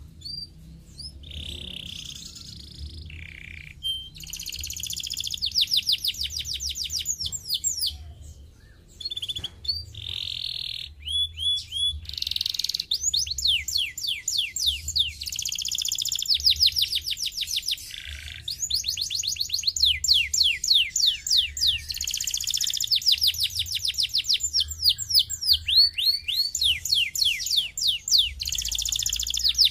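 Canary singing: a few scattered single notes and short calls, then, from about four seconds in, long, rapid trills of quickly repeated sweeping notes broken by brief pauses.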